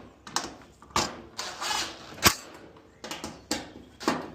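Screws being fitted and driven into a clothes dryer's sheet-metal panel: a series of short scraping and clicking sounds, with one sharp metallic click about two seconds in.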